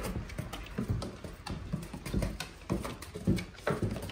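A Black Russian Terrier's paws and claws knocking on wooden stairs as it climbs, an uneven run of taps and low thumps several times a second.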